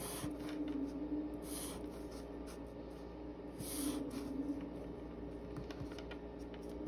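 Black Sharpie permanent marker drawn across paper along a ruler's edge, a few separate hissy strokes a second or two apart, over a steady low hum.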